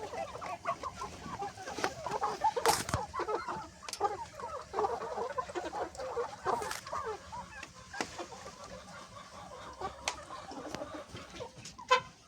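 A flock of chickens clucking and chattering continuously, with a few sharp knocks, the loudest near the end.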